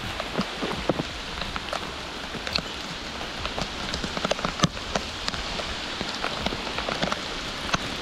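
Steady rain falling on a shallow creek and its rocky bank: an even hiss dotted with the sharp ticks of single drops.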